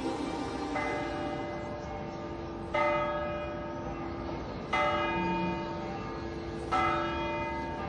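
Church bell tolling slowly: four strikes about two seconds apart, each ringing on and fading, over a steady low hum.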